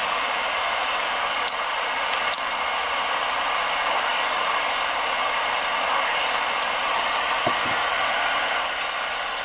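Steady hiss of receiver and band noise from a Radio Shack HTX-10 10-meter transceiver's speaker in upper sideband, with no station heard as it is tuned down the band. Two sharp clicks about one and a half and two and a half seconds in.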